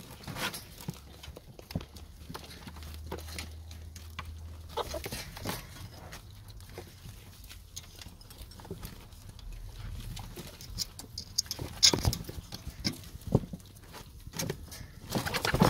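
Ferrets feeding on a whole pigeon: irregular wet crunching and clicking as they chew and tear at the carcass, with rustling of feathers and bedding. A few sharper cracks stand out about twelve seconds in.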